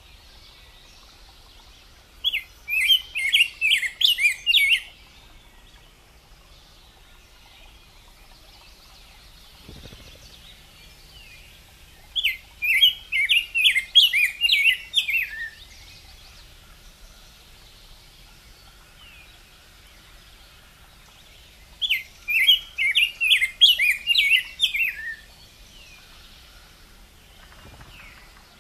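Rose-breasted grosbeak (degollado) singing: three rich warbled phrases, each about two and a half seconds long and about ten seconds apart, with faint short notes between them.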